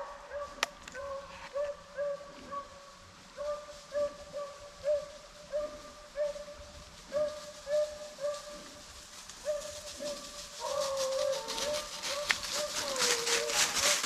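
Deer hounds baying on a running deer: a steady string of short, evenly pitched bawls, about one or two a second, with a second voice joining near the end and one long call falling in pitch. Dry leaves crunch louder toward the end as a hound runs up through the leaf litter.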